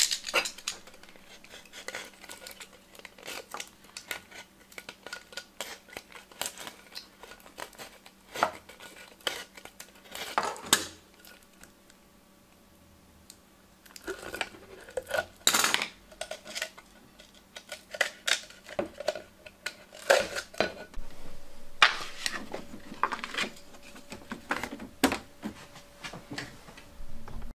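Tin-can pinhole camera being handled and opened, its aluminium foil cover peeled away: scattered metallic clinks, knocks and scrapes, with a quiet pause about halfway through.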